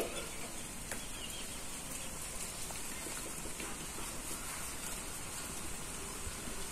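Steady background hiss with a few faint ticks and no clear foreground sound.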